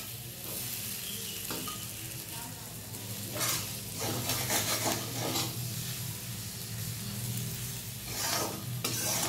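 Flat metal spatula scraping and stirring fried chunks of elephant foot yam around a kadhai, over a steady light sizzle of hot oil. The scraping comes in several louder strokes, about three and a half seconds in, again just after, and near the end.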